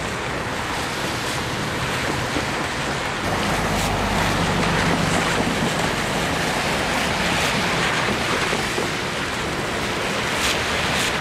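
Cars driving over a wet street and railroad crossing, tyres hissing on the wet pavement in a steady rush, with wind on the microphone and a low engine hum a few seconds in.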